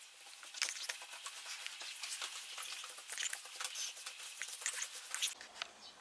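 Hands wiping and smoothing a plastic oilcloth tablecloth with a small cloth: a quick, irregular crinkly rustling and scraping that stops abruptly about five seconds in.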